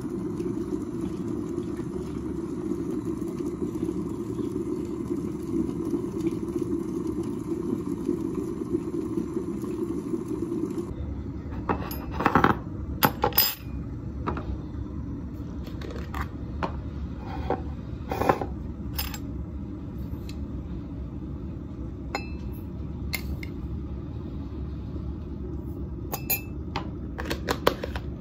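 Glass electric kettle boiling hard, a steady seething rush that cuts off about eleven seconds in. Then a scattering of sharp clinks and taps against a ceramic mug, the loudest a little after the cut and again a few seconds later.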